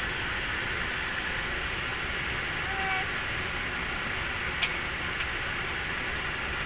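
Steady hiss and hum of an airliner cabin's air-conditioning and ventilation before takeoff. One sharp click sounds a little past halfway, with a fainter tick just after.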